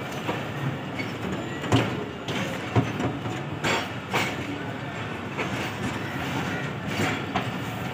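Passenger train coach rolling slowly along the track: a steady rumble of the running gear with several sharp clacks from the wheels.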